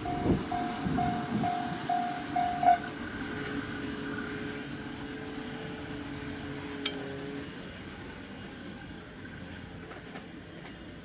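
Japanese level-crossing warning bell ringing in quick repeated dings, about two a second, and cutting off about three seconds in, while a just-passed electric train's running noise, with a few wheel clacks, fades away. A single sharp click near the seven-second mark.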